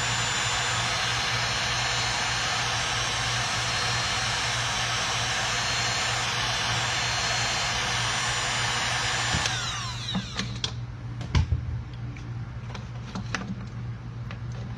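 Heat gun blowing steadily with a motor whine while shrinking heat-shrink tubing over a wire splice, then switched off about nine and a half seconds in, its whine falling as the fan spins down. A few clicks and knocks of handling follow.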